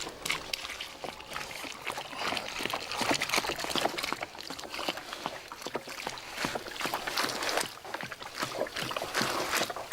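Water poured onto dry cattle concentrate feed (wheat bran with a molasses mix and salt) and the wet mash sloshing and squelching as it is kneaded by hand, in an irregular run of small splashes.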